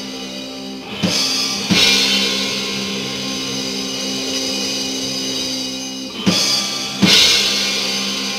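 Live rock band: a held chord rings steadily while the drums hit twice in a pair with crashing cymbals, then again the same way about five seconds later.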